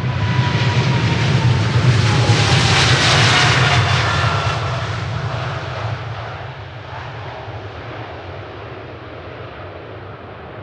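Boeing 777-300ER's twin GE90 turbofans at takeoff power passing by, loudest about three seconds in, with a whine that slides down in pitch as the jet goes past, then fading as it moves away.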